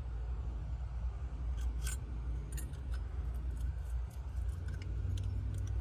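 Small metal clicks and clinks as a door lock's cylinder and parts are handled during rekeying, scattered through the middle and later part, over a steady low hum.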